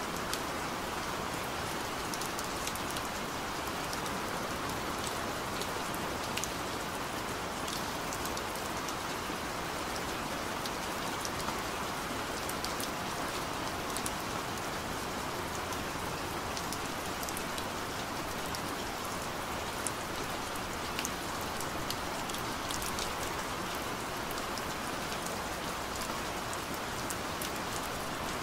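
Steady rain, an even hiss sprinkled with many small ticks of drops. It serves as the masking sound layer of a subliminal affirmation track.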